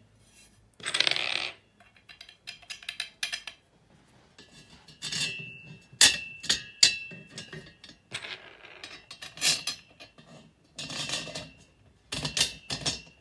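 Metal hardware of a flat-pack desk clicking, clinking and scraping as a hand tool fastens bolts through the black steel legs into the wooden desktop. It comes in irregular bursts of clicks and short scrapes, some with a brief metallic ring.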